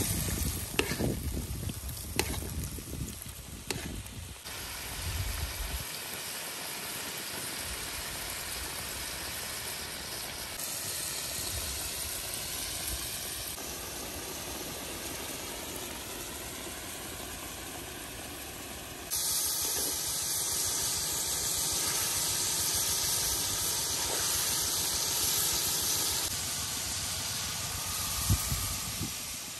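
A whole fish simmering in red chili sauce in a steel wok, with a steady hiss of bubbling and steam. In the first few seconds a metal spoon scrapes and taps against the wok as sauce is ladled over the fish. About two-thirds of the way through, the hiss turns suddenly louder and brighter.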